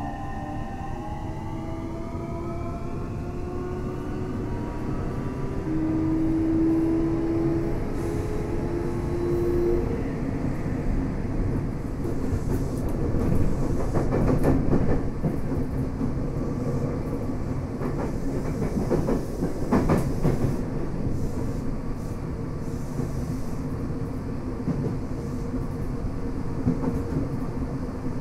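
Tokyo Metro 7000 series Hitachi IGBT VVVF inverter and 165 kW traction motors, heard from inside the car, whining in several rising tones as the train accelerates. The whine stops about ten seconds in, leaving steady wheel-on-rail running noise with clacks over rail joints around the middle.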